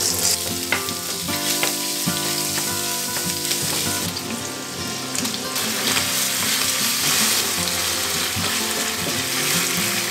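Minced pork sizzling as it fries in a small rectangular pan, stirred with a wooden spatula, with a few short knocks of the spatula in the first couple of seconds.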